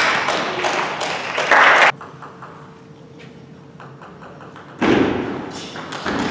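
Table tennis ball being struck and bouncing on the table over loud hall noise. About two seconds in, the sound drops to a quieter lull with a few faint taps, and the loud noise returns near the end.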